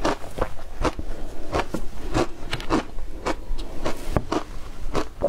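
Mouthfuls of shaved ice crunched between the teeth close to a clip-on microphone, in quick short crunches about two a second.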